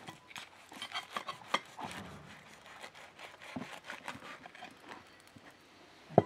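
A knife sawing through the crust of a soft baked bun with rasping, scratchy strokes, and one sharp knock near the end as the blade meets the metal tray.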